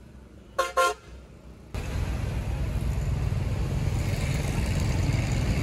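A Honda Civic's engine running close by, a steady low rumble that starts abruptly about two seconds in. Before it there is a brief double tone.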